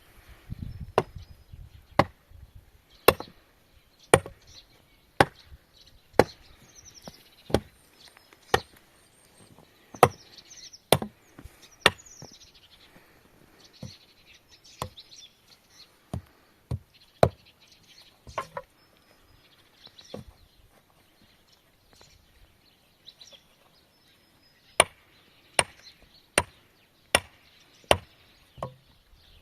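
A series of sharp single strikes, about one a second, thinning out for a few seconds past the middle and picking up again near the end.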